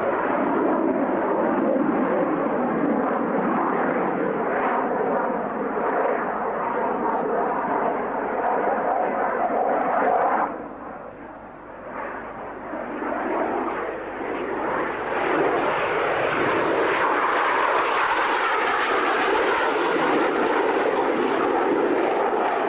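Twin Rolls-Royce Avon jet engines of a de Havilland Sea Vixen flying past during a display: loud, steady jet noise. It drops away suddenly about ten seconds in, then builds back up with a rising whine.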